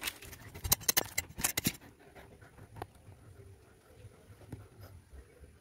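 Handling noise as the phone is swung down close to the ground: a quick run of sharp clicks and knocks in the first two seconds, then quieter rustling with a few scattered clicks.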